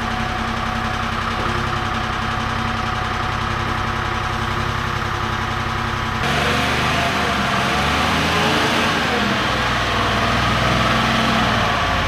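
An engine running steadily at idle. About six seconds in, the sound changes abruptly and becomes louder, with more hiss.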